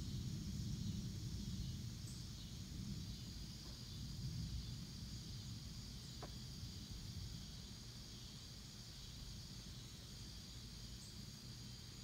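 Low rumble of distant thunder dying away over the first few seconds, with a steady high insect chorus going on throughout.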